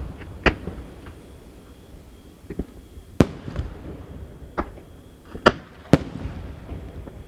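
Aerial firework shells bursting in the sky: six sharp bangs at uneven intervals, with a low rumble between them.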